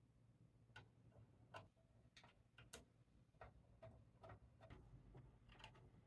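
Faint, irregular small metallic clicks of a screwdriver and small mounting screws being started loosely into a power supply's screw holes through the back panel of a metal PC case.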